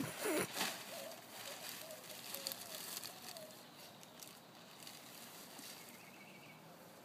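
A burst of rustling and crackling at the start, then a faint voice babbling for a couple of seconds before it fades to quiet outdoor hiss.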